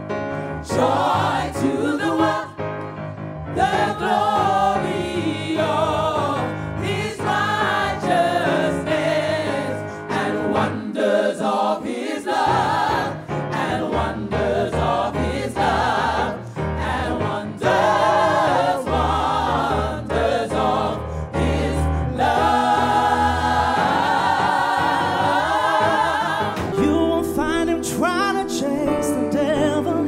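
Gospel choir singing with instrumental backing, a lead voice over the choir.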